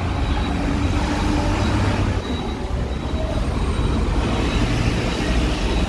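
Steady road traffic noise from trucks, buses and cars moving and idling in the port approach road, a continuous deep rumble with no single standout event.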